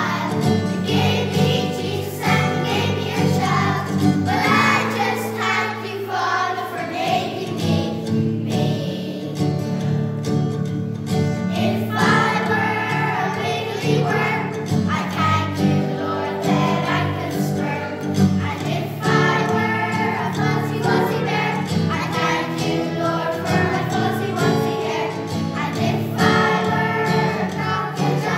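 Music: a group of voices singing over an instrumental accompaniment that holds steady low notes.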